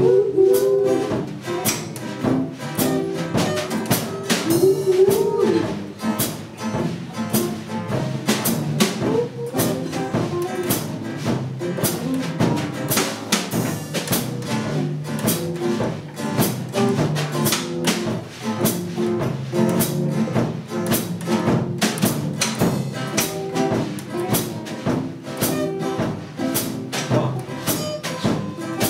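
Small acoustic band playing: strummed acoustic guitars and an acoustic bass guitar over a drum kit keeping a steady beat.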